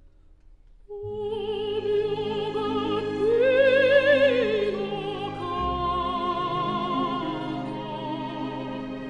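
Background music: an operatic voice singing with strong vibrato over orchestral accompaniment, coming in about a second in after a brief quieter moment.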